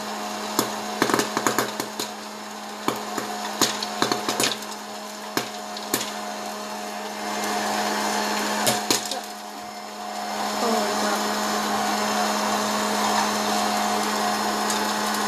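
Hot-air popcorn popper running, its fan giving a steady hum and rush of blown air. Scattered sharp pops and clicks from the popcorn are frequent for the first six seconds or so, then sparse as the batch finishes. The air rush grows louder about ten seconds in.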